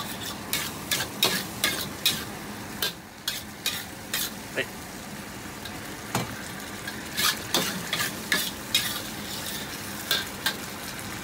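Metal wok ladle stirring and scraping a simmering, sizzling sauce in a wok, with irregular sharp clinks of the ladle against the wok over a steady sizzle. The sauce is being thickened with a starch slurry.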